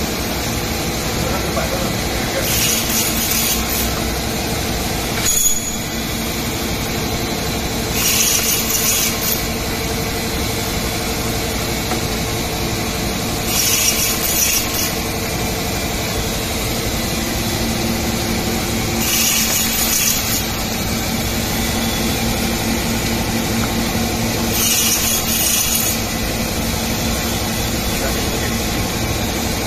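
XFP-6580 fully automatic bandsaw running steadily with a low hum as it slices frozen pet-food rolls into discs. A hiss lasting about a second comes back roughly every five and a half seconds, and there is a single knock about five seconds in.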